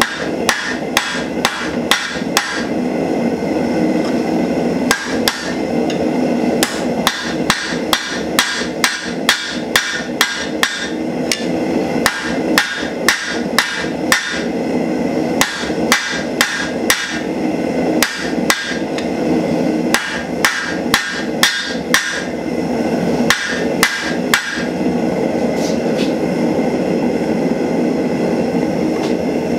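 Hand hammer striking red-hot steel bar stock on an anvil during hand forging: a long run of ringing metal-on-metal blows, about two a second, that stops a few seconds before the end. A steady rushing noise runs underneath throughout.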